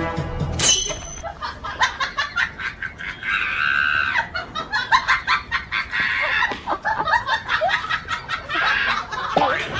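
Music cuts off less than a second in. Then chickens cluck and squawk in quick short calls, with a longer squawk about three seconds in and another near the end.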